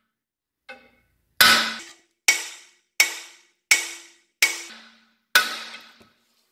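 Hammer striking the steering knuckle of a VW Golf/Jetta Mk4 to shock the lower ball joint's stud free: a light tap, then six hard metal-on-metal blows about three-quarters of a second apart, each ringing briefly. The stud breaks loose under this hammering.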